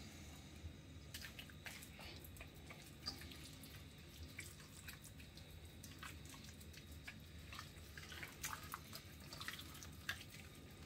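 Faint wet squishing and small scattered clicks of hands kneading seasoned raw pork in a stainless steel bowl, over a low steady room hum.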